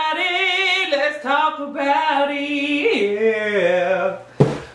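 A woman singing unaccompanied in long, held notes with a wide vibrato, the melody stepping down and ending about four seconds in. A short sharp knock comes just before the end.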